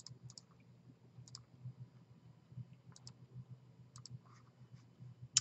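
Computer mouse buttons clicking several times, faint sharp clicks mostly in close pairs, the loudest near the end, over a low steady hum.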